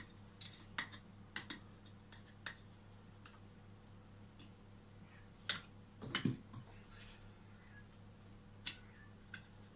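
Scattered small clicks and taps of metal pliers working inside a small pot, with a louder knock about six seconds in as the pliers are set down on the bench. A steady low hum runs underneath.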